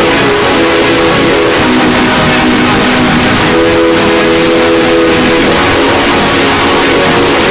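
Harshly distorted 'earrape' electronic sounds, very loud: a dense wall of harsh noise with a few held buzzing tones on top that shift to new pitches every second or two.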